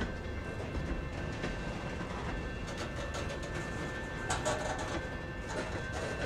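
Freight train cars (covered hoppers and boxcars) rolling past close by: a steady rumble of wheels on rail with a faint steady high ringing, and a few sharp clanks, the loudest about four seconds in and another about five and a half seconds in.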